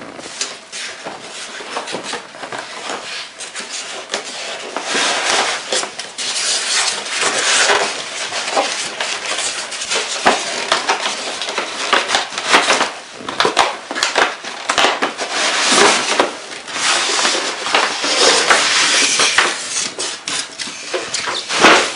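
An RC boat's retail box and packaging being opened and unpacked by hand: continuous rustling and crinkling with many sharp clicks and knocks, and one louder knock near the end.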